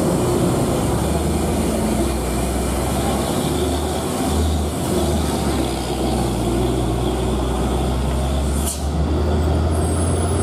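Hino 500 truck's diesel engine running with a steady low drone as the truck drives through a hairpin bend, with a brief dip in loudness near the end.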